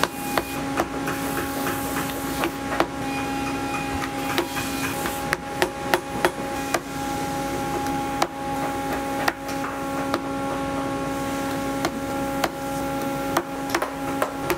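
A shoemaker's hammer tapping on a boot in irregular, sharp strikes, roughly one every half second to a second. Under the taps runs a steady machine hum.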